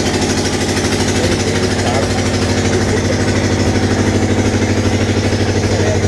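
An engine idling steadily close by, a low even drone that pulses rapidly, with people's voices faintly over it.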